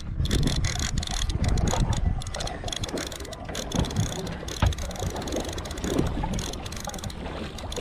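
Conventional fishing reel with braided line being cranked against a hooked yellowtail, its gears giving a rapid, irregular clicking, with wind buffeting the microphone underneath.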